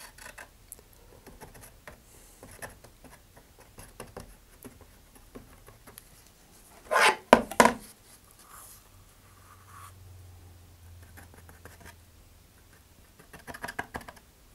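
Wooden stir stick scraping and spreading thick two-part epoxy (RocketPoxy) along a fin joint, a run of soft scratching strokes. About seven seconds in comes a brief, much louder burst of scraping as the stick works in the epoxy cup, and a smaller cluster near the end.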